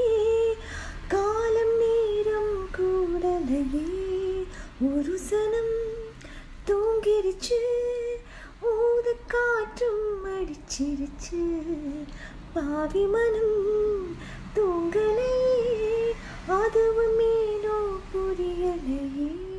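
A woman humming a slow, wordless melody, one voice without accompaniment, in short phrases that glide up and down with brief breaks between them.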